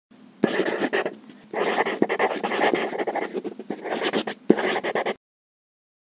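A pen scratching across paper in long drawing strokes, with a short pause about a second in, before it cuts off suddenly about five seconds in.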